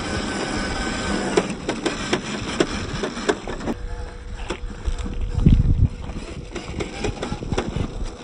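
RC crawler's electric motor and gearbox whining as it drives, with rapid clicks and crunches of stones under its tyres. The sound changes abruptly a little under halfway through, and a brief low rumble comes a little past halfway.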